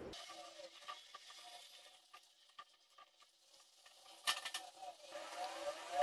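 Faint handling noise of a wooden slingshot frame with bolts and rubber tubing being worked by hand: scattered light clicks and taps, with a brief cluster of sharper clicks about four seconds in.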